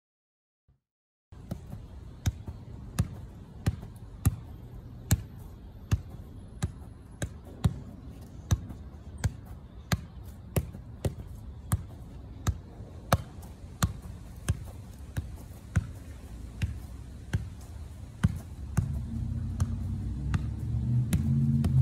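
Soccer ball being juggled: steady thuds of the foot striking the ball, about two a second, beginning a little over a second in. A louder low rumble joins near the end.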